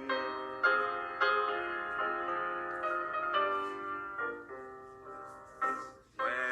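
Instrumental interlude of a hymn: sustained keyboard chords, a new chord struck every second or so, with the singing voice returning near the end.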